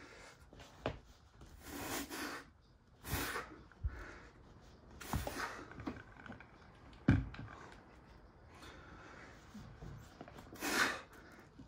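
Red plastic hand corker pressed down to drive corks into mead bottles, with three sharp thunks about 1, 4 and 7 seconds in. Between them come about four hard breaths from the effort of pushing.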